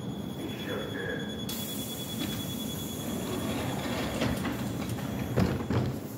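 An EP2DM electric train's sliding passenger doors closing: a hiss starts about a second and a half in, then a few knocks and a loud thump near the end, over a steady high tone.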